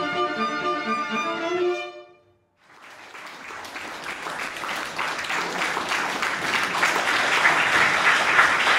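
Bowed strings, a cello among them, play sustained notes that cut off about two seconds in. After a moment of silence, applause rises and grows steadily louder.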